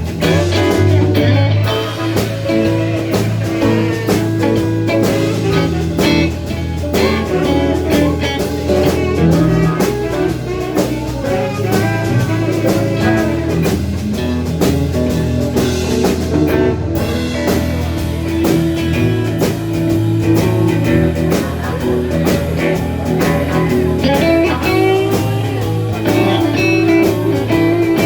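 Live blues band playing an instrumental passage: guitar lines over bass and drums, with no singing.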